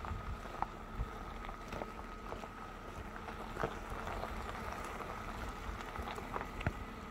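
BMW 525i's straight-six running low as the car creeps over a rough, broken dirt track, with a steady rumble and scattered knocks and clicks from the rough ground. A faint steady high whine runs underneath.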